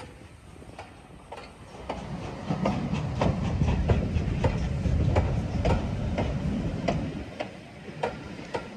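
Passenger coaches of a departing steam train rolling past on the rails, a low rumble that swells about two and a half seconds in and dies away near the end, with regular sharp clicks of the wheels over the rail joints.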